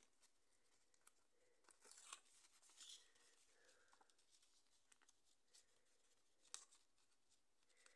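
Near silence, with a few faint rustles and ticks as fingernails pick the backing strip off double-sided tape on folded paper.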